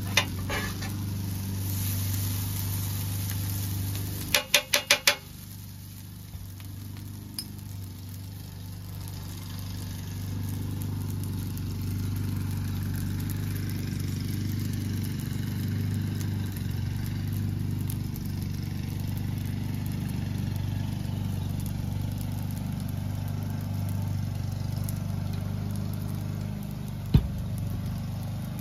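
A steady low mechanical hum runs under faint frying sizzle from fried rice on a flat-top griddle. About four seconds in come five quick sharp taps, a spatula knocked against the steel griddle plate.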